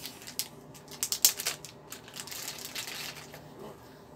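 Thin plastic packaging crinkling as it is peeled off a camera battery by hand, with sharp crackles and small clicks. They are densest and loudest in the first second and a half, then thin out into softer rustling.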